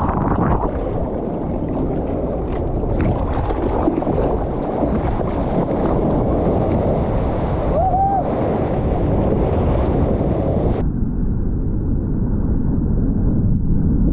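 Rushing surf and wind rumbling on a GoPro's microphone as a surfer paddles into and rides a breaking wave, with a brief high tone about eight seconds in. A little before eleven seconds the sound turns duller and more muffled.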